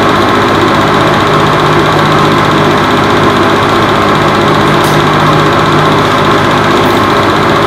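Film projector running: a steady, loud mechanical hum and rattle that holds unchanged while the reel runs out to blank white light.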